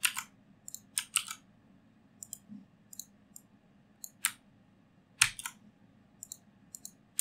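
Computer mouse clicks: a dozen or so sharp, short clicks at irregular spacing, the loudest about five seconds in.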